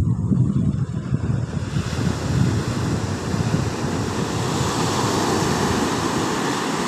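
Wind buffeting the microphone, giving way about two seconds in to a steady rushing hiss of surf breaking on the shore.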